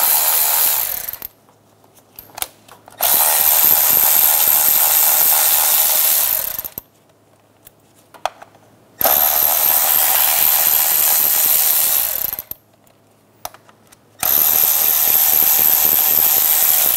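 Cordless Milwaukee M12 electric ratchet with a 10 mm socket running in bursts, backing out ignition coil hold-down bolts. One run ends about a second in and three more follow, each lasting about three and a half seconds, with short pauses and a few small clicks between them as the socket moves to the next bolt.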